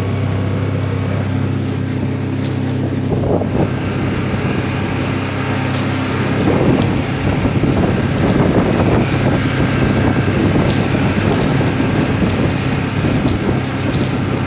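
A vehicle engine running at a steady drone while it drives across rough ground, with wind buffeting the microphone. About six seconds in, a rougher rattling noise builds over the drone.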